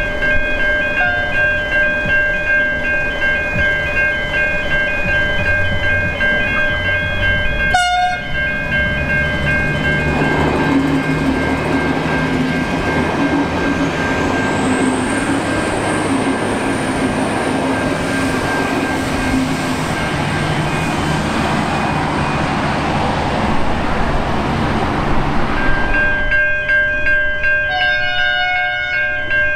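Level crossing bells ring rapidly and steadily. From about ten seconds in, a V/Line Vlocity diesel multiple unit runs through the crossing, and its diesel engine hum and wheel noise drown the bells. Near the end the bells are heard on their own again as the next train approaches.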